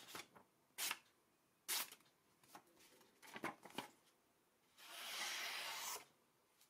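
Sharp hunting knife blade with an X12MF carbon-steel edge slicing through a sheet of printer paper, testing its sharpness: several short hissing cuts about a second apart, then one longer slice of about a second near the end.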